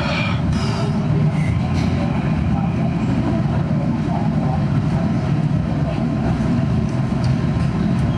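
Steady low background rumble, with a few faint clicks in the first second.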